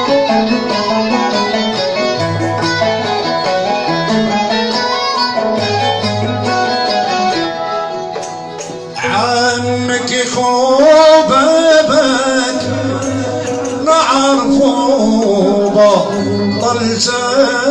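Live Arabic song performance by a small band. For the first nine seconds it is instrumental, over a low figure that repeats about every second and a half. After that the music gets louder and a wavering melody with strong vibrato takes the lead.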